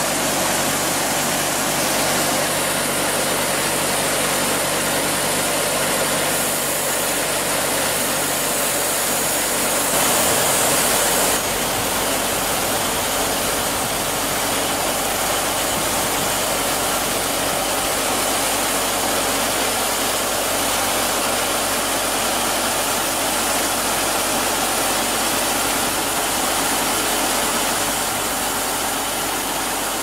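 Sawmill machinery running steadily while sawing a large log into slabs: a continuous engine-like drone with a hiss of cutting over it, louder for a second or so about ten seconds in.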